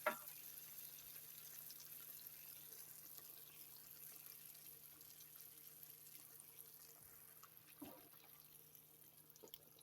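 Near silence: faint steady hiss and low hum of kitchen room tone, with a couple of soft knocks near the end.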